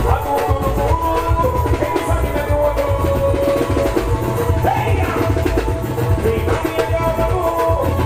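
Live band music played loud: a hand drum struck in a fast, steady roll over a heavy bass beat, with keyboard notes held above it.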